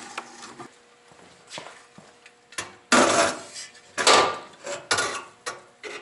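Metal gas burner assembly of a Lennox WhisperHeat G20 furnace being handled: a series of knocks, clanks and scrapes, sparse at first and coming thick over the last three seconds, the loudest about three and four seconds in.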